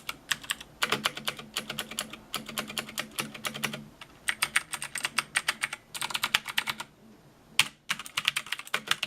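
Fast typing on a Havit HV-KB366L mechanical keyboard with clicky blue switches: rapid runs of key clicks in bursts, with a short pause about seven seconds in.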